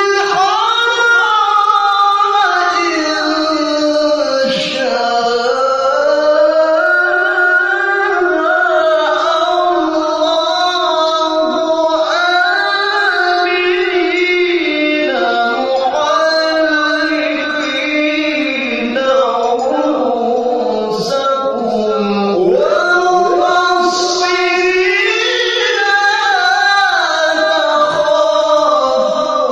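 A man's high voice singing in qori (Qur'an reciter) style: long held notes that wind up and down in ornamented melodic runs, as in tilawah recitation and breath training.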